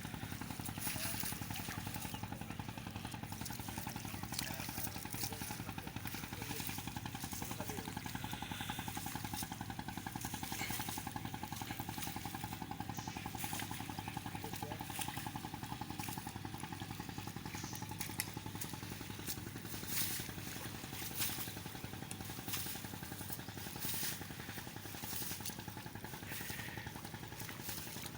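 A small engine running steadily at an even speed, with short splashing or knocking sounds here and there over it.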